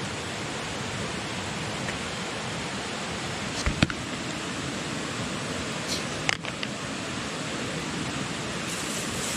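Steady rushing of a river, with two short knocks a few seconds apart.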